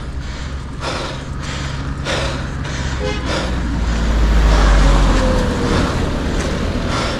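A motor vehicle's engine passing on the road: a low, steady drone that grows louder to a peak about five seconds in, then eases off.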